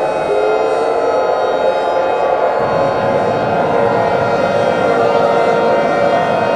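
Loud siren-like wail: several steady tones sounding together, with pitches sliding slowly up and down.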